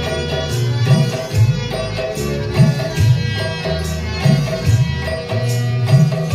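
Instrumental music: tabla playing a steady rhythm, its deep strokes bending in pitch, under a sitar-like plucked-string melody, with no singing.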